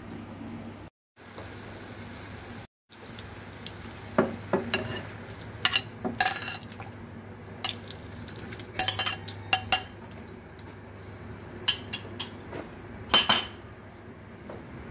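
A plate and utensil clinking against a pot as shrimp heads and shells are scraped into water on the stove. There are about a dozen sharp clinks, spaced irregularly, over a steady low hum.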